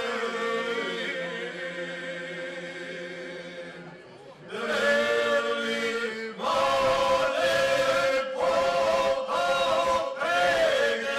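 Men's folk group singing unaccompanied in the traditional Serbian old village style, several voices holding long notes together. The voices fade to a brief breath pause about four seconds in, then return louder in shorter phrases with short gaps between them.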